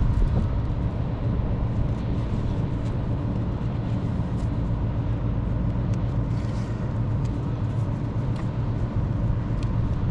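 Steady low mechanical rumble with a few faint, light clicks on top.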